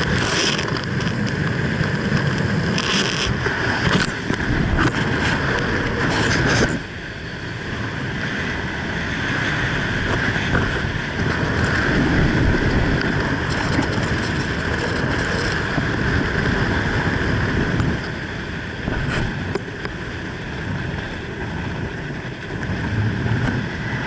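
Wind rushing over a helmet camera's microphone under an open parachute canopy. It is choppier and louder for the first seven seconds or so, then drops a little and runs steadier.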